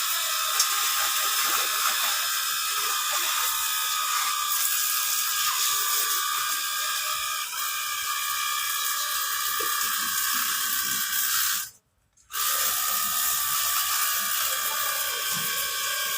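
Cordless battery-powered pressure washer running: a steady motor and pump whine with the hiss of the water spray. It cuts out for a moment about twelve seconds in, then starts again and stops near the end; the owner says stopping on and off like this means the battery is running low.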